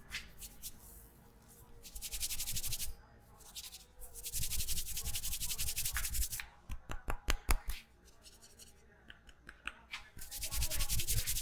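Hands rubbing fast over an oiled scalp and hair during a head massage, in three bursts of quick, even strokes, with a short run of sharp clicks in the middle.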